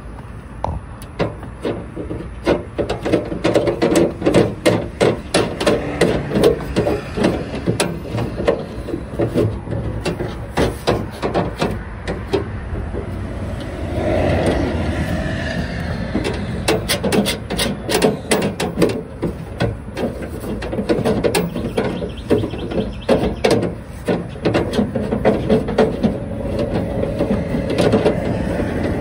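Thumb screw with a plastic knob being wound by hand into a window air conditioner's metal side bracket: a long run of quick scraping clicks as the threads and knob rub against the metal.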